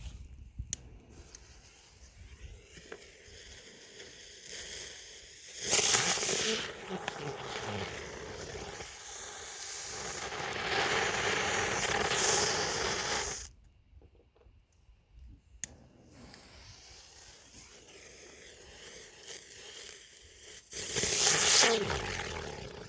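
Small ground spinner fireworks going off with a loud hissing spray of sparks. One hisses for about seven seconds before cutting off suddenly, and a second flares up near the end.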